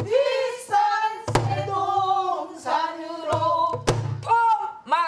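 A woman singing a Korean folk-style song with a wavering, ornamented voice, beating time on a buk (Korean barrel drum). Two sharp stick strikes land, about a second and a half in and again near four seconds, among deeper palm thuds on the drumhead.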